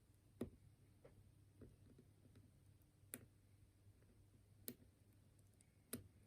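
Faint, sharp clicks of a lock pick working the pins inside a pin-tumbler challenge lock under counterclockwise tension: four crisper clicks a second or more apart, with a couple of lighter taps between them.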